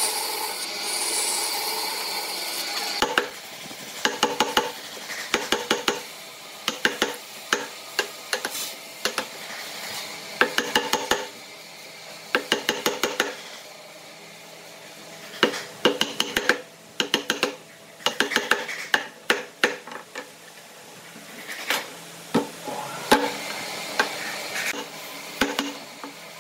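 A band saw cutting wood for about three seconds, then a wood chisel struck again and again with a mallet, in quick runs of several sharp knocks with short pauses between them, chopping out the waste between saw kerfs in a wooden block.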